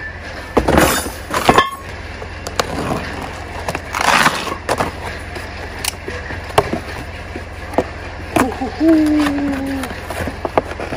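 Cardboard shipping boxes being opened and handled: flaps scraping and rubbing and cardboard tearing, in short bursts about a second in and about four seconds in, with scattered knocks and clicks.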